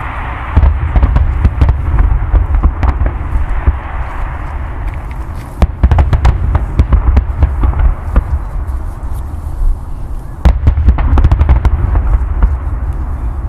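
Fireworks display: a rapid run of bangs and crackles over a continuous low rumble, with louder clusters of bursts about six seconds in and again about ten and a half seconds in.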